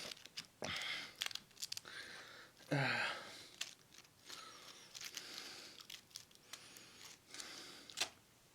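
Someone eating breaded fried chicken wings close to the microphone: chewing and crunching on the breading, with tearing and crinkling sounds and small clicks.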